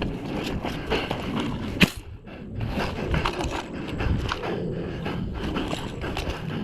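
Footsteps and rustling with many small clicks, and one sharp crack a little under two seconds in.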